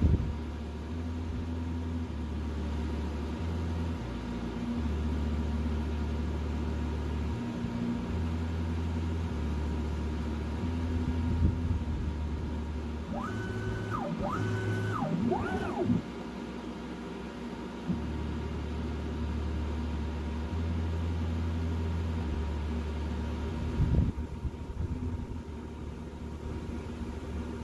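CNC mill's axis motors driving a spring-loaded engraver through an engraving program: a steady low motor hum that steps up and down in pitch as the axes change direction and speed. About halfway through come three quick rapid moves, each a whine that rises, holds and falls.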